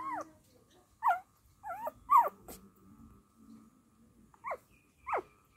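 Young dachshund puppies whimpering: about six short, high whines spread out over a few seconds, each one sliding down in pitch.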